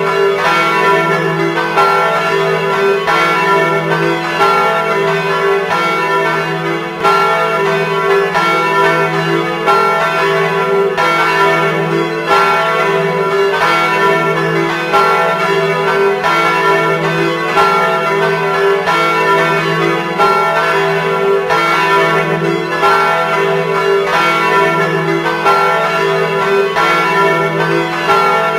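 Several church tower bells ringing in a continuous peal, struck again and again so that their tones overlap and ring on.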